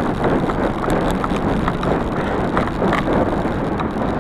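Bicycle rolling fast over a muddy, rutted dirt trail: steady tyre and frame noise with scattered small knocks, and wind on the handlebar-mounted microphone.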